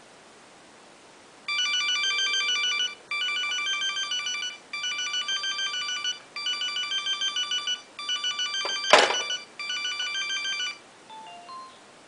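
Flip cell phone ringing with an electronic trilling ringtone, a short phrase of stepped notes repeated about six times with brief gaps: it is receiving the call dialled from the rotary phone. About nine seconds in there is a single loud clunk, the rotary phone's handset being hung up on its cradle, and the ringing stops a little later, followed by a few faint beeps.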